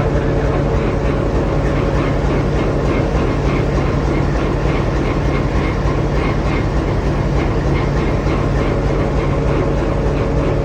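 Diesel locomotive running with a steady, loud hum, with a regular clicking about three times a second over it.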